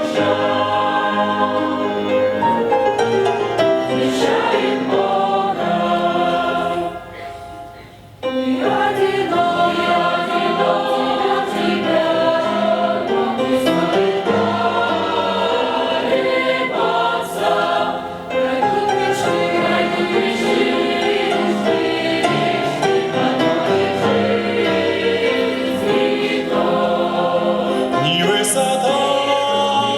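Choir singing a hymn with musical accompaniment. The sound drops away about seven seconds in and comes back suddenly about a second later.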